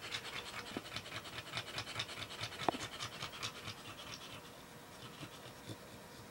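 A sleeping dog snoring in quick, panting-like breaths, about four a second, that die away over the last two seconds. A single sharp click near the middle.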